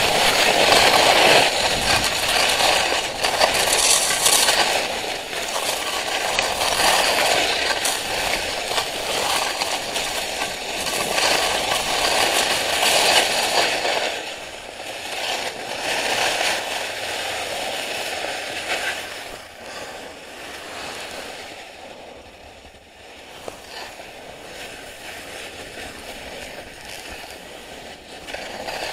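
Skis hissing and scraping over snow on a downhill run, the rushing noise swelling and easing again and again, and growing clearly quieter over the last third.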